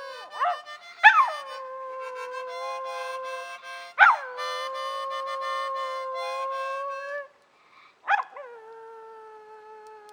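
A dog howling in three long drawn-out notes, each opening with a sharp high cry that drops quickly to a steady held pitch.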